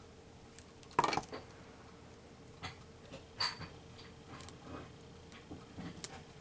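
Scattered small taps and clicks of craft materials being handled on a work table while a paper cut-out is glued down, with a sharper knock about a second in and another about three and a half seconds in.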